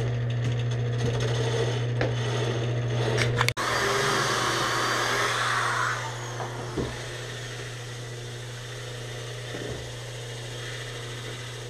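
Power drill boring pocket holes through a pocket-hole jig into plywood, over a steady low machine hum. There is a brief break about three and a half seconds in, and the drilling is loudest shortly after.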